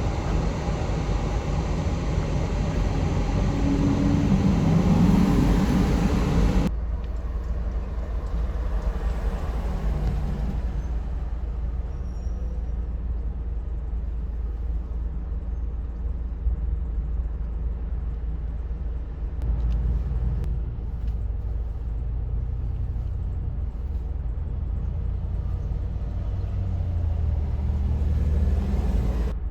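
Garbage truck diesel engines running as the trucks move. About seven seconds in, the sound changes abruptly to a quieter, steadier low engine rumble, which swells a little twice later on.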